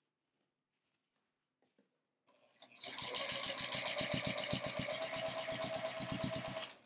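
Juki TL-2010Q sewing machine stitching through the layers of a quilt, a fast, even run of stitches. It starts about three seconds in and stops just before the end.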